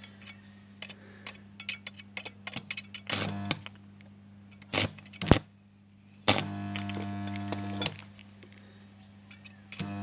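An old electric stick welder humming steadily, with the arc struck in several short crackling bursts and held once for about a second and a half past the middle, building up worn steel on the mower's axle parts. Sharp clicks and ticks are scattered between the welds.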